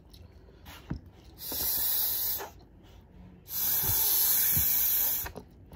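Someone sucking the meat out of a crab leg: two long hissing sucks of air, the first about a second long and the second nearly two.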